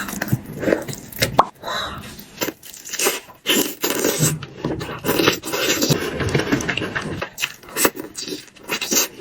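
A person eating close to the microphone: chewing and smacking food, with irregular wet clicks, slurps and small crunches.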